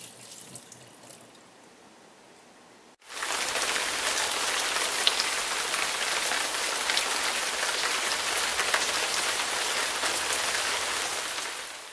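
Faint water trickling into a steel kitchen sink as it fades out. About three seconds in, a loud, steady, rain-like hiss with scattered crackles starts suddenly and holds to the end.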